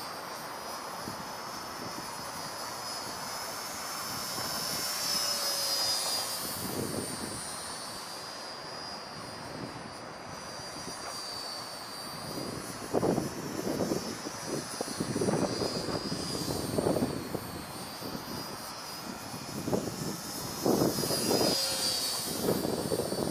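The twin brushed electric motors and three-blade props of a micro RC P-38 warbird whining high and thin in flight, the pitch and loudness swelling and fading as the plane passes, most strongly about five seconds in and again near the end. Irregular low rumbles come in from about halfway.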